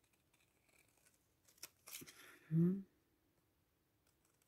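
Scissors snipping through a sheet to cut out a rubber stamp: a few faint cuts and paper crinkles, with one sharper snip about a second and a half in.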